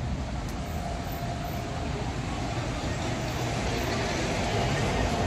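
Street traffic: a motor vehicle running close by, a steady rumble and hiss with a faint engine tone, growing slightly louder.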